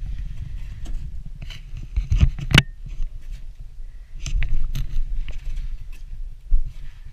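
Irregular footsteps and scrapes, a few sharp knocks among them, over a steady low rumble on the microphone.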